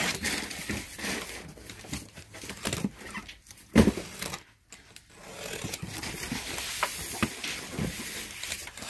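Box cutter slitting the packing tape and plastic wrap along the seam of a cardboard box, with scraping, crinkling and handling of the cardboard. One sharp knock a little under four seconds in, and a longer steady scrape through the tape near the end.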